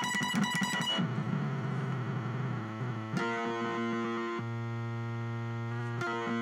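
Electric guitar through a circuit-bent BOSS DS-1 distortion pedal, making a glitchy electronic sound: a fast stuttering pulse for about the first second, then a fuzzy distorted tone, then a held buzzy note from about three seconds in that cuts out briefly a few times near the end.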